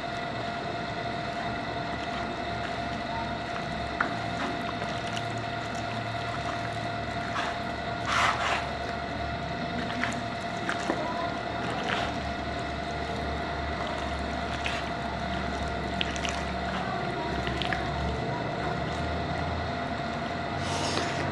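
A hand mixing raw chicken pieces with egg, spices and flour in a plastic bowl, with occasional soft wet squishing, over a steady background hum.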